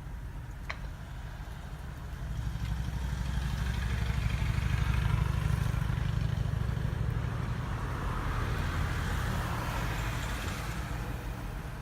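Street traffic: a motor vehicle passing, its sound swelling over a few seconds and then fading, over a steady low rumble.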